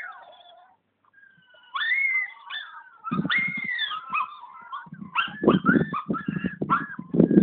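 A puppy whining and yipping during play: high, gliding, arching cries, several in a row, with dull low thumps mixed in from about three seconds in.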